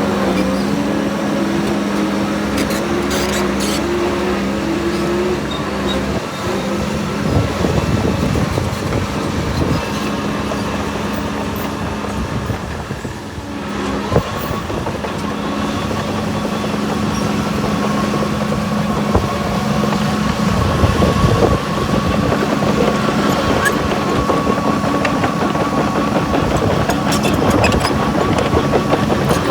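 Heavy construction machinery's diesel engine running steadily under work, with a steady high whine setting in about halfway through.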